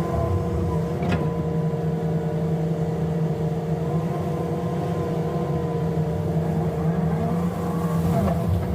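Excavator working, its diesel engine running steadily under load, with a short sharp knock about a second in.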